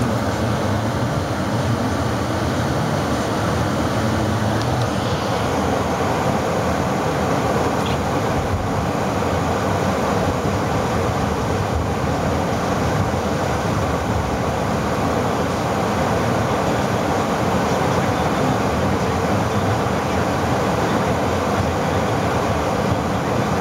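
2001 Toyota Avalon's 3.0-litre V6 running at a steady fast idle just after a cold start, warming up. The sound is a loud, even rumble that does not change.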